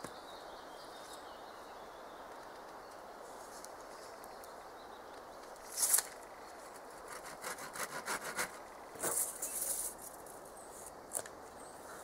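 Wooden boards being worked by hand: a sharp rasping scrape about halfway through, then a quick run of short rasping strokes on wood for a few seconds, over a faint steady hiss.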